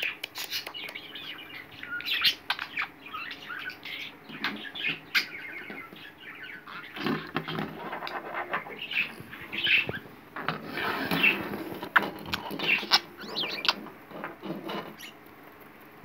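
Budgerigar chirping and chattering in quick, short calls, busiest in the middle stretch, with scattered sharp taps and ticks on the wooden tabletop.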